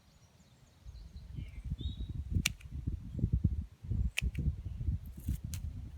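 Garden snips cutting snapdragon stems: two sharp clicks about two seconds apart, a fainter one near the end, over a gusty low rumble on the microphone.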